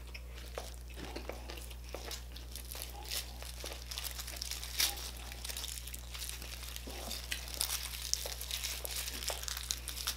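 Close-miked eating sounds: many small, irregular crackles and crunches of crispy deep-fried pork skin and fried garlic being handled, pulled apart and chewed.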